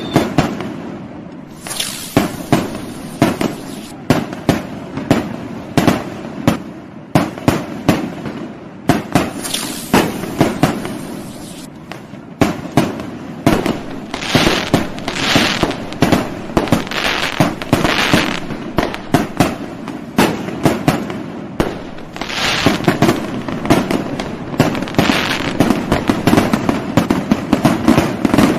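Fireworks going off without pause: a rapid, irregular string of sharp bangs and pops, several a second, with stretches of denser crackle around the middle and later on.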